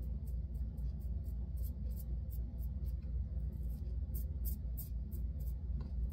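Short, scratchy strokes of a Timeless 0.68 titanium safety razor scraping lathered stubble on the chin, about three to four strokes a second, over a steady low hum.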